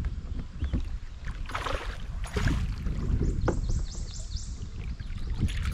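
Wind on the microphone and river water sloshing around a fishing kayak, with splashy rushes about one and a half to two and a half seconds in from a hooked smallmouth bass thrashing at the surface. A short run of quick ticks follows just past halfway.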